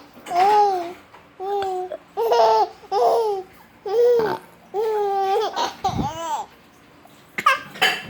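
A baby's high-pitched laughing and babbling in about seven short bursts, each under a second long, then a pause of about a second and a couple of short sharp noises near the end.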